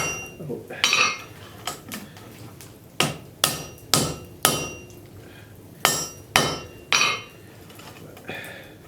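Blacksmith's hand hammer striking a hot railroad spike on the anvil, forging it: about ten blows in small groups with short pauses between, each with a brief metallic ring.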